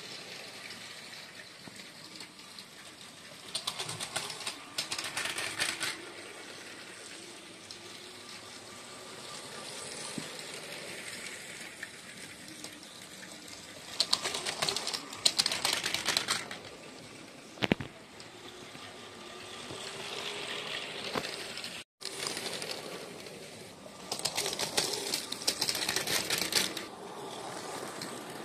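LEGO trains running on plastic track: the wheels clatter in rapid clicking over the rail joints and the crossing in three bursts of a couple of seconds each, over the steady hum of the small electric train motors.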